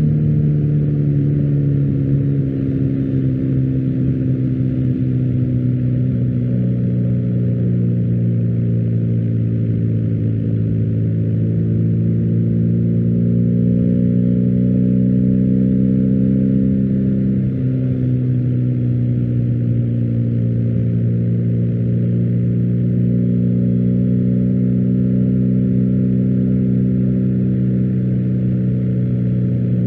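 BMW R1250GS boxer-twin engine running through an Akrapovic exhaust, its pitch slowly climbing and falling as the revs change, with a clear drop a little past halfway.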